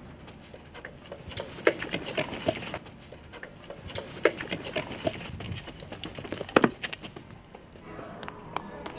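Footsteps of several people running hard on a gritty alley surface: a fast, irregular patter of steps and scuffs with a few heavier thuds, easing off near the end.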